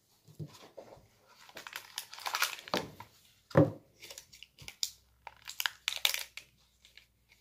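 Plastic packaging crinkling and crackling as it is handled and pulled at by hand, in irregular crackles, the loudest a little past halfway.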